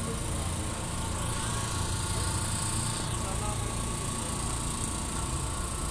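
Steady street ambience: the low rumble of a slow-moving small truck's engine, with a steady high-pitched insect buzz over it.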